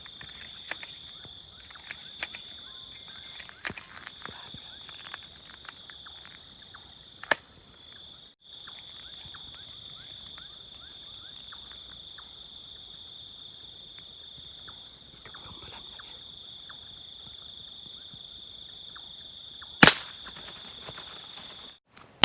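A steady, high, finely pulsing buzz of insects, and near the end a single sharp crack of a 4.5 mm air rifle shot.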